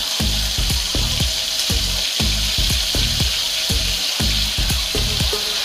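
Strips of bacon sizzling and frying in a skillet, a steady hiss. Under it runs the low, steady beat of background music, about two beats a second.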